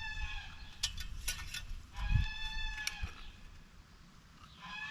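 Two drawn-out, high, steady calls from a farm animal, one at the start and one about two seconds in, with a few sharp clicks in between.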